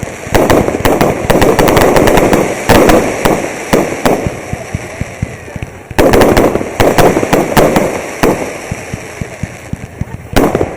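Fireworks going off in rapid volleys of sharp bangs and crackles, one dense barrage and then a second starting about six seconds in.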